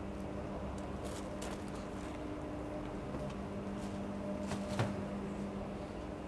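Steady low mechanical hum of room equipment, with a few faint rustles and small clicks, the first as baking paper is peeled off a sponge cake.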